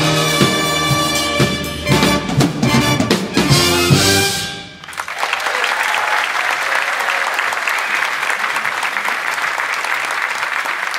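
Jazz big band of trumpets, trombones, saxophones, guitar and drums playing the closing bars of a piece, with drum hits, ending a little over four seconds in. After a brief gap the audience applauds.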